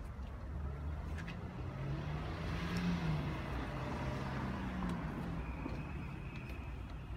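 Car engine running close by, growing louder to a peak about three seconds in and then easing off, with a few light clicks.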